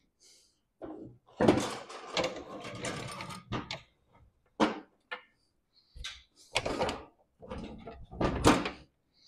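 Rusty steel mower deck being tipped up on its edge and shifted on a steel diamond-plate workbench: a long scraping clatter, then several separate knocks and clunks of metal on metal.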